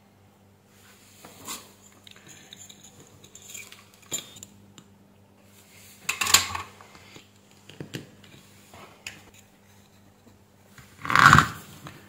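Small workbench handling noises: light clicks and scrapes as a thin jumper wire and a remote control's circuit board are handled, with a louder clatter about six seconds in and the loudest one, the plastic remote case being handled, about a second before the end. A faint steady low hum runs underneath.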